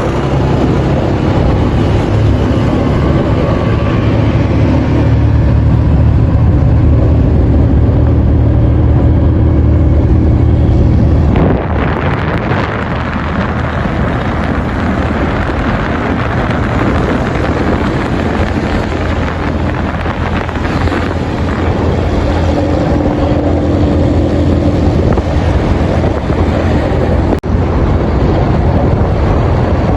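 Moving car: steady engine and road noise with wind rushing over the microphone. The noise changes character abruptly about eleven seconds in, and briefly drops out once near the end.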